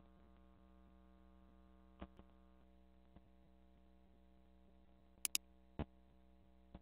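Computer mouse clicking a few times, including a quick double click about five seconds in, over a faint steady electrical hum.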